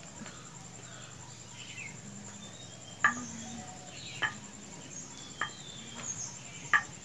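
Four light, sharp clicks and knocks about a second apart, from dough being rolled out with a rolling pin and a plastic gujiya mould being handled. Faint high chirps and a thin steady high tone sit in the background.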